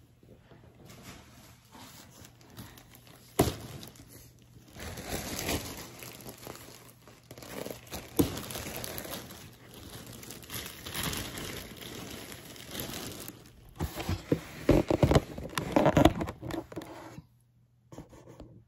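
Shopping bags crinkling and rustling as purchases are pulled out and handled, with a couple of sharp knocks. The rustling stops about a second before the end.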